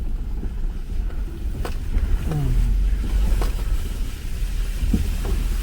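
Subaru Forester driving over a rough dirt trail: a steady low rumble of engine and tyres, with a few sharp knocks and rattles from the bumps.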